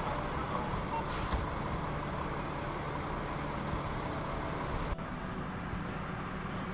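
Heavy diesel truck engine idling, a steady low rumble, with a short hiss about a second in.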